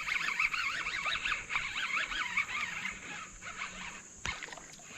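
A high, rapidly warbling animal call repeating for about the first three seconds, over a steady high insect hiss, with one sharp click about four seconds in.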